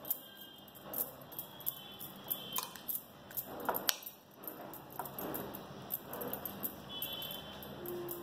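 Metal spoon stirring and scraping in a small bowl, working a thick spice paste into dried prawns, with scattered light clinks against the bowl and a couple of sharper clinks near the middle.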